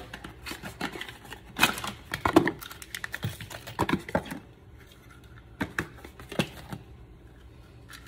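Cardboard box and packaging rustling, with scattered sharp clicks and crinkles, as a dimmer switch is taken out of its retail box; the handling is busiest in the first half and turns quieter after about four and a half seconds.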